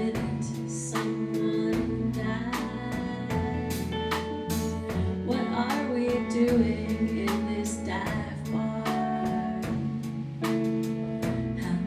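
A woman singing live at a microphone, backed by a band with guitar and a steady drum beat.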